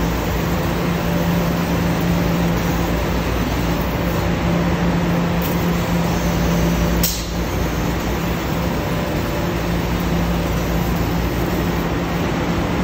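Mitsubishi ML2512HV CNC laser cutter running while cutting sheet metal: a loud, steady hiss and machine noise with a constant low hum. A short sharp click about seven seconds in.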